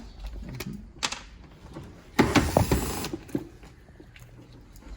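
A cordless power drill/driver runs in one short burst about two seconds in, backing out a screw from the Jeep sound bar's speaker plate, with a few sharp clicks of parts being handled around it.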